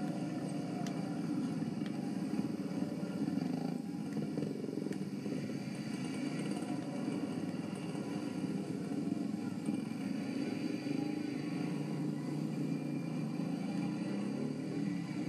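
Vehicle engines running steadily as a line of traffic passes close by: a passenger jeepney and motorcycle tricycles.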